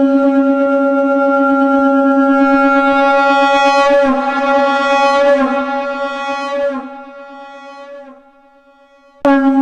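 A conch shell (shankh) blown in one long, steady note pitched at C#, which wavers and grows brighter about halfway through, then tapers off and fades. A fresh blast starts abruptly near the end.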